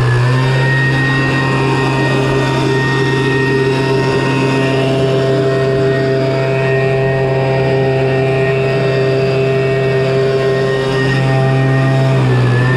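Handheld petrol leaf blower running at a steady, high engine speed, blowing water off wet paving.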